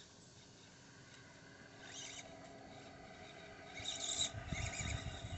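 Faint whine from the small electric motor and gears of a 1/24-scale SCX24 Gladiator RC crawler inching over rocks, with short bursts of high squeaks about two seconds and four seconds in and a low rumble building near the end.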